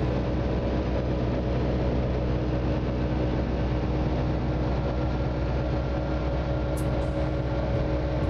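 Light aircraft's piston engine and propeller droning steadily in flight, heard from inside the cockpit.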